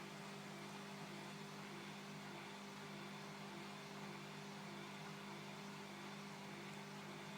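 Bosch Classixx 6 Vario Perfect washing machine running mid-cycle: a steady motor hum with a faint pulse about twice a second.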